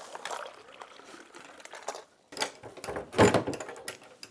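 Tea poured from a metal Moroccan teapot into small glasses, a steady splashing trickle lasting about two seconds. After a short pause, a louder run of knocks and clatter follows, loudest about three seconds in.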